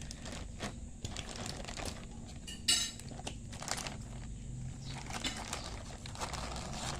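Scissors cutting open a plastic shipping pouch, with the plastic crinkling and small clicks and rustles throughout. There is one louder, sharper snip or tear about three seconds in.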